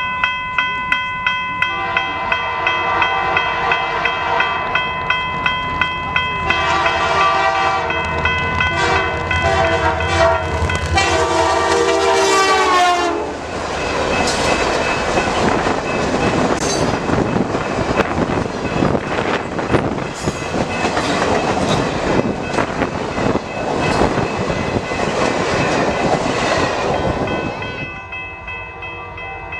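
A grade-crossing bell ringing with even strikes, then a diesel locomotive horn sounding several blasts and dropping in pitch as the locomotive passes. The train's cars then rumble by with rapid wheel clicks on the rail joints until the train clears near the end, leaving the crossing bell ringing.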